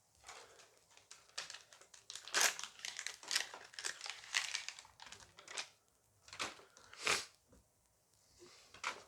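A Dice Masters booster pack's plastic wrapper being torn open and crinkled by hand. It comes as a run of quick rustles and snaps for the first few seconds, then a few separate crinkles near the end.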